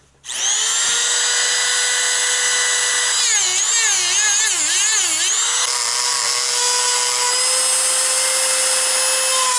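Dremel rotary tool with a cut-off wheel spinning up and running at a high whine while cutting through the plastic frame of a lithium battery module, where copper BMS wires are embedded. From about three seconds in the pitch dips and wavers several times as the wheel bogs in the cut, then holds steady again.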